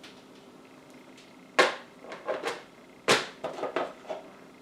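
Hard plastic microwave steamer parts knocking and clacking together as the tiers and lid are handled and fitted: a handful of sharp knocks, the loudest about a second and a half in and again about three seconds in.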